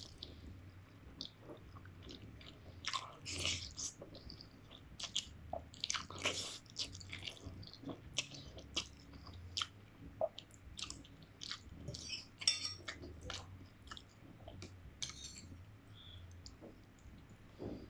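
A person eating instant noodles cooked as a soup, close to the microphone: chewing with many irregular short mouth clicks, at times louder.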